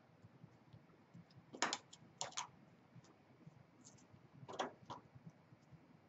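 Sheet metal being squeezed and folded at a pan corner with a hand seamer: a few faint clicks and crinkles in small clusters, about a second and a half in, just after two seconds, and again near the five-second mark.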